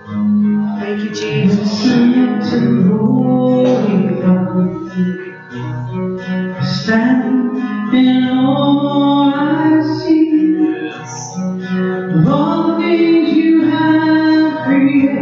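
Live worship song: a singer accompanied by a strummed acoustic guitar.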